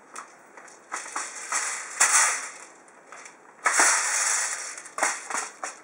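Plastic magazine of a Cybergun AK47 airsoft rifle being fitted into the gun: a few sharp plastic clicks and clacks, with a longer scraping rattle about halfway through.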